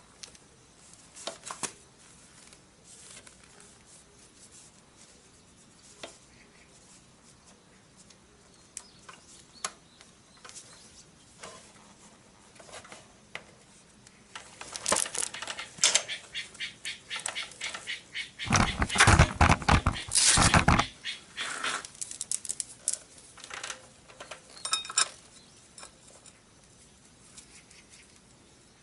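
Steel roller drive chain of a Honda CB750 clinking as it is handled and threaded around the front sprocket by hand: scattered light clicks, then a dense rattling run from about halfway through, loudest for about two seconds.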